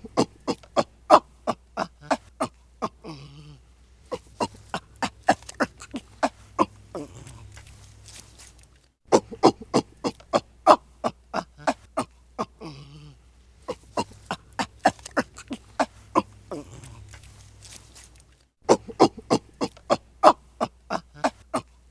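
Ape giving runs of short, rapid grunts and breaths, about three or four a second, broken by brief pauses roughly nine seconds apart.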